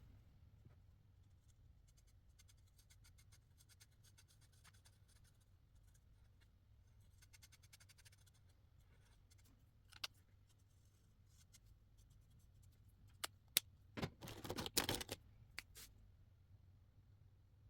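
Felt-tip marker scratching on paper in faint short strokes, then several sharp clicks and a brief louder rustle about fourteen seconds in as the markers are handled.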